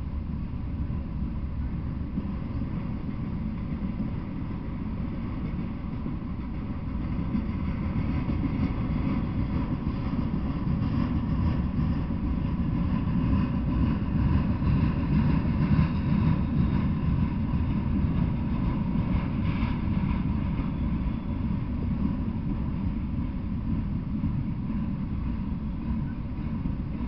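Freight train of autorack cars rolling past: a steady rumble of wheels on rail, growing a little louder towards the middle.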